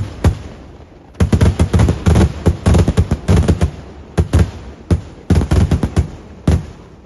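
Fireworks going off in rapid volleys of loud, sharp bangs. A dense run of bangs starts about a second in and lasts a couple of seconds, followed by shorter clusters separated by brief pauses.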